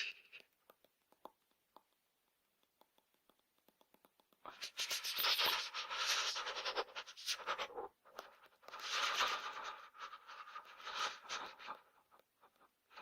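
A person shivering with cold: two stretches of about three seconds each of rapid, stuttering, chattering sound, with faint scattered clicks between them.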